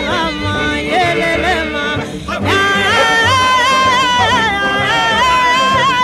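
Background music: a song with a singing voice holding long, wavering notes over a steady bass beat, with a brief break about two seconds in.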